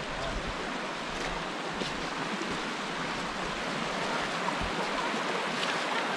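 Steady rush of water flowing over rocks in a hill stream.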